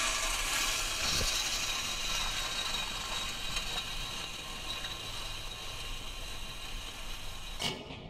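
A loop tool dragged across a crushed oyster shell court surface, making a steady scraping of shell that eases off slightly over several seconds. A few sharp clicks come near the end.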